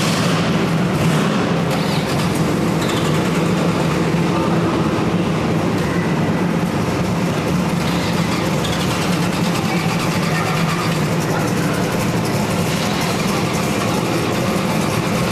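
Car engine running at a slow crawl, a steady low drone, with people talking in the background.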